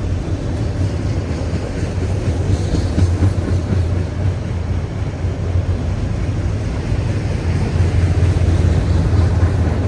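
Freight train passing close by: a steady, loud low rumble of the cars rolling on the rails.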